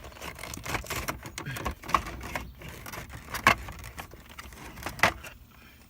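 Plastic console trim clips being popped loose and handled, a scattered run of sharp clicks and rattles, the loudest about three and a half seconds in.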